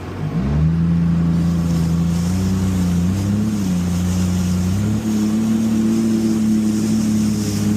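Jet ski engine running. Its pitch jumps up about half a second in, wavers briefly, then steps up again about five seconds in as the throttle opens further.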